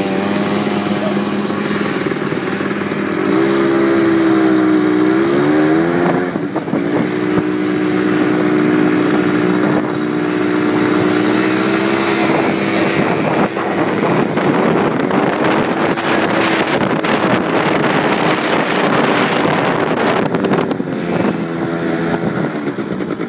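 Quad ATV engines running steadily. About three seconds in the engine pitch climbs as one revs up, then holds fairly even.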